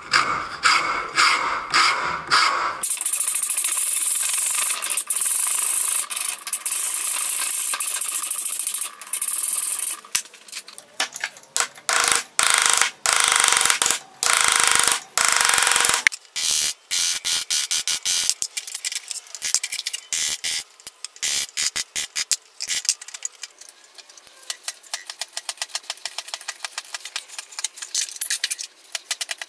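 Wood rasp and round file scraping a hardwood plane handle held in a vise: a run of rasping strokes, a long unbroken stretch of steady scraping from about three to ten seconds in, then quick short strokes.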